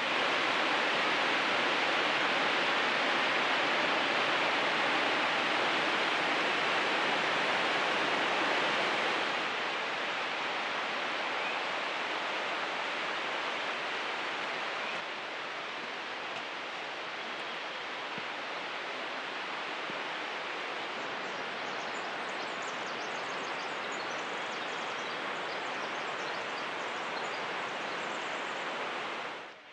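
Steady rush of running water, an even hiss with no rhythm, loudest at first and dropping in level twice, about a third of the way in and again around halfway.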